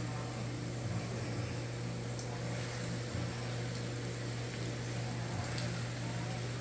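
Flour-dredged shrimp frying in hot oil in a heavy cast iron skillet: a steady sizzle with faint pops, over a steady low hum. The oil is holding its heat with the shrimp in.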